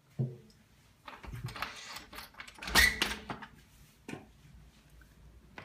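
A glass door worked by its lever handle: a short thump, then rattling and knocking of the handle and door in its frame, loudest a little under three seconds in, and a sharp click of the latch a second later.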